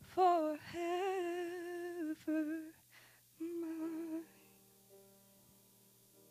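Solo female voice singing the final line of a hymn in long held notes with vibrato, over piano accompaniment. The voice stops a little past four seconds in, and the piano's last chord rings on faintly.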